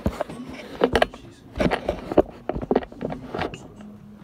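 Handling noise on a phone's built-in microphone: irregular knocks and rubbing as the phone is grabbed and moved about in the hand.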